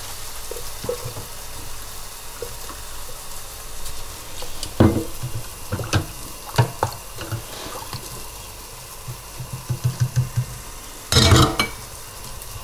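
Spice paste frying in a frying pan on a gas hob, a steady sizzle, with scattered knocks and clicks of utensils and containers being handled. A brief, louder burst of noise comes about eleven seconds in.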